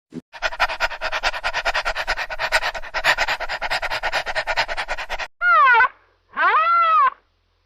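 Animal sounds: a rapid, rasping run of pulses, about ten a second, lasting roughly five seconds. It is followed by two short pitched calls that rise and fall.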